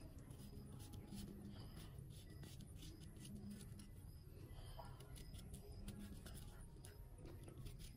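Faint scraping and scattered light clicks of a knife blade scoring a peeled banana.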